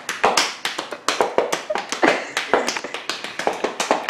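A quick, irregular run of sharp taps and slaps, several a second.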